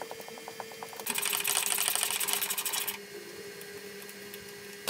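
Hand ratchet clicking as the strut top-mount nuts are backed off: spaced clicks at first, then a loud, fast run of clicking from about one second in to about three seconds, before it quietens.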